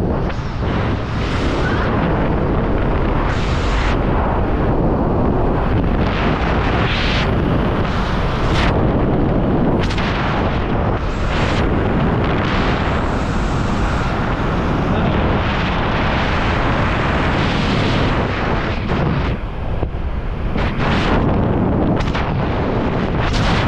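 Wind rushing over the microphone of a helmet camera on a skydiver descending under an open parachute canopy: a loud, continuous rush that swells in gusts every second or two.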